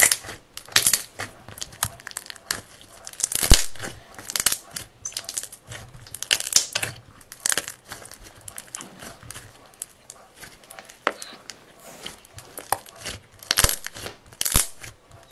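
Slime being squeezed, stretched and pulled apart by hand as a block of clay is worked into it: irregular sticky crackling and tearing, with a few sharp snaps.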